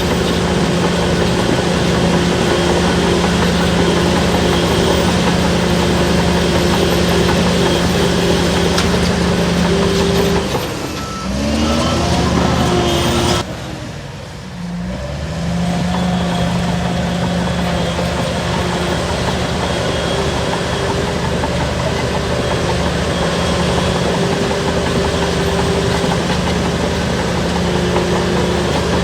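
Shantui DH17-C3 crawler bulldozer's diesel engine running steadily under load. About ten seconds in, the revs sag and climb back, and a few seconds later they drop again before rising back to the steady working pitch.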